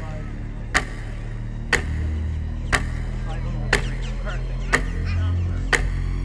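Countdown ticking sound effect: sharp ticks exactly once a second over low, sustained background music.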